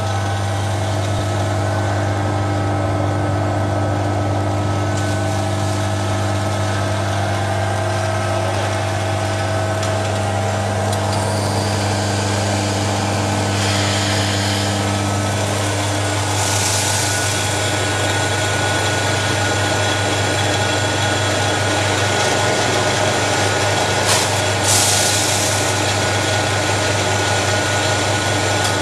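Small electric rice polishing machine running with a steady hum, with a few short hissing rushes along the way.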